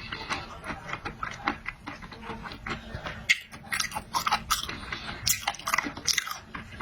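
Close-up wet chewing and biting of marinated raw shrimp, with irregular smacking and slurping clicks and soft crunches.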